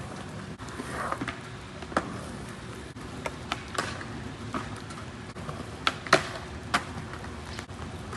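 Skateboard on wet pavement: a steady hiss of rolling with a scattering of sharp clacks and knocks from the board and trucks, the loudest few about six seconds in.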